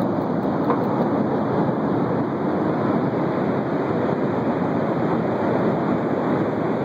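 Steady rushing roar of fast-moving, turbulent water.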